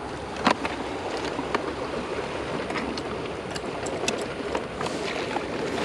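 Seawater washing among shore rocks, a steady rushing, with a few small clicks and taps as gear is handled in a bag.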